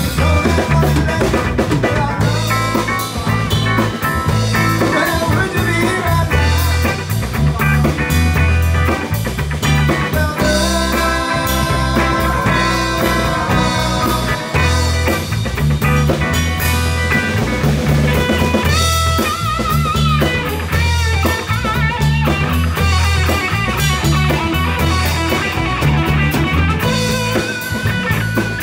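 Live band playing an instrumental passage: five-string electric bass, drum kit, keyboard and guitar, loud and steady.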